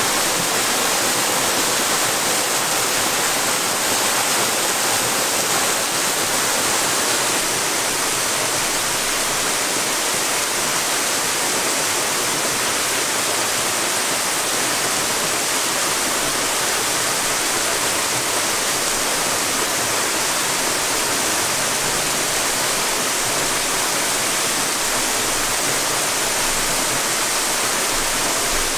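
Small waterfall pouring over a rock ledge: a steady, unbroken rush of falling water.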